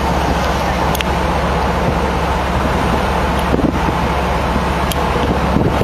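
Steady wind noise on the microphone and water rushing past the hull over a low, steady hum of ship machinery, recorded on deck of a ship under way.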